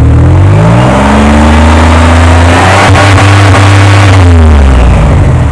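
1998 Oldsmobile 88's V6 engine revved up over about the first second and a half, held at higher rpm, then let fall back toward idle near the end. The engine has a cylinder 3 misfire flagged by the check engine light, which the owner describes as skipping.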